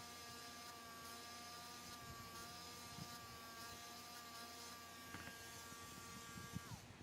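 A small electric engraving tool running with a faint, steady buzz while it marks the steel knife liner. Near the end it is switched off and its pitch falls away as it winds down.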